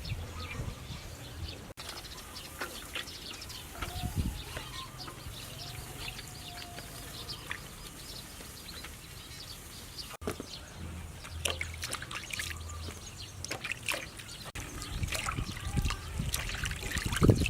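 Water trickling and splashing, with scattered small clicks and knocks.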